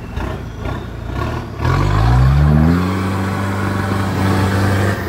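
Off-road 4x4's engine revving up hard about a second and a half in, then held at high revs before easing off near the end.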